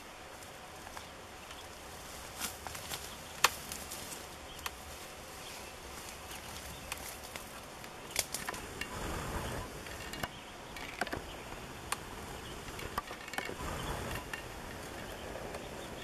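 Large honey bee swarm buzzing steadily, with scattered sharp clicks from the white fir branch it hangs on being cut and handled.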